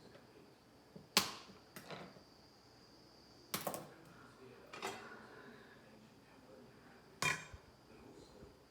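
Kitchen clatter: five sharp knocks and clinks of pots and utensils, spread out with pauses between them.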